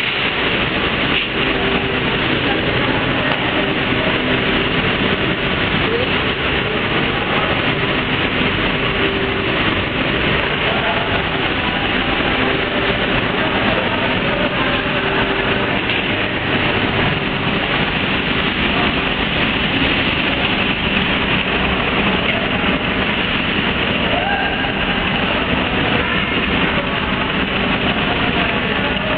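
Steady, loud running noise of industrial bread-making machinery: conveyor belts carrying dough to a tunnel oven.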